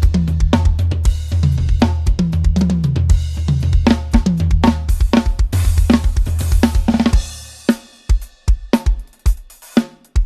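An inexpensive drum kit, multitrack-recorded and mixed, played in a steady groove of bass drum, snare, hi-hat and cymbals. A low sustained bass runs under the drums until about seven seconds in, then fades, leaving the kit playing sparser hits alone.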